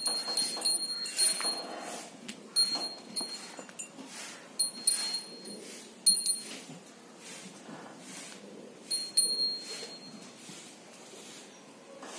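Short metallic chinks and clinks from a dog's spiked metal collar as the dog moves. They come irregularly, several in the first half, with the sharpest about six seconds in and a pair around nine seconds.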